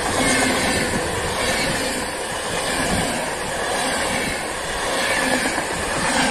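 Intercity passenger coaches rolling past close by at speed: a steady, loud rush and rumble of wheels on the rails.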